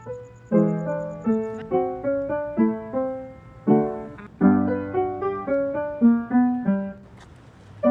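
Solo piano music: a gentle melody of quick notes over chords, each note fading after it is struck, with a short lull near the end.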